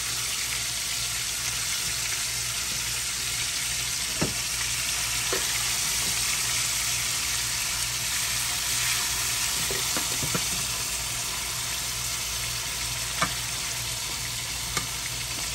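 Chicken pieces frying in hot olive oil in a pan, a steady sizzle, with a few sharp clicks of metal tongs against the pan as pieces are turned and added.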